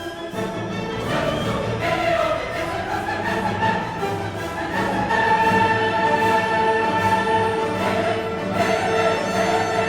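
Background music: orchestral music with a choir singing sustained notes.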